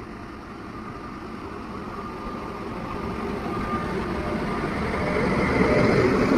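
Indian Railways WAG-9 electric locomotive hauling a freight train, approaching and passing close by. Its running noise grows steadily louder and is loudest near the end, as the locomotive draws level.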